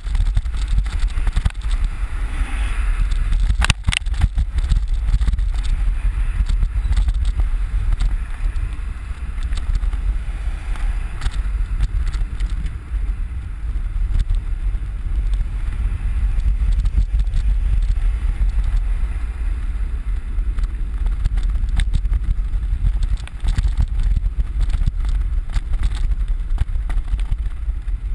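Wind rushing over the microphone of a camera on a moving bicycle, a steady low rumble, with occasional sharp clicks and rattles from the bike over the road.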